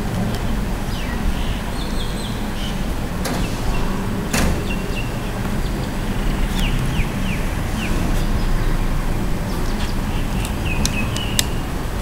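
Edible-nest swiftlets giving short, high, downward chirps in small clusters: about a second in, near five seconds, around seven seconds, and again near the end. Under them runs a steady low rumble of town traffic.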